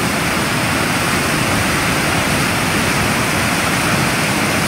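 Muddy floodwater from a swollen stream rushing and pouring over a submerged causeway: a loud, steady rushing of water.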